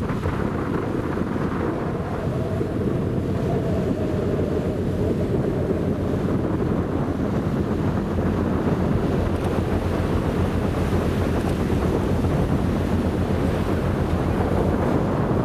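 Wind buffeting the microphone aboard a passenger ferry, over the steady rush of sea water along the hull.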